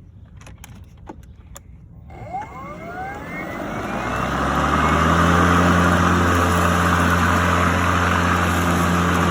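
A few sharp clicks, then a Ryobi 40V HP brushless battery lawn mower starts about two seconds in. The motor and blade spin up with a rising whine for two or three seconds, then run steadily with a low hum and a rush of air.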